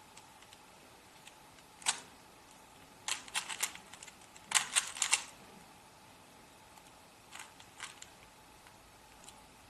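A plastic 3x3 Rubik's Cube being turned by hand, its layers clicking as they snap round. There is a single click about two seconds in, two quick flurries of clicks around three and five seconds, and a few lighter clicks near the end.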